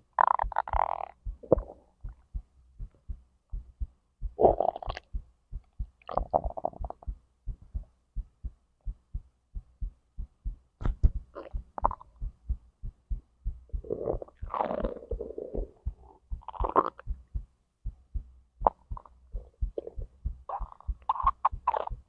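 Digestive gurgling from the stomach and intestines, coming in short bursts every few seconds over a steady heartbeat thudding underneath.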